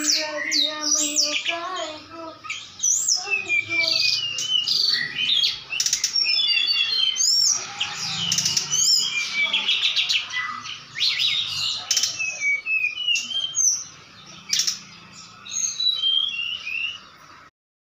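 Brown-chested jungle flycatcher singing fast, varied whistled phrases and chirps, with a few sharp clicks among them. It is singing back at a rival flycatcher.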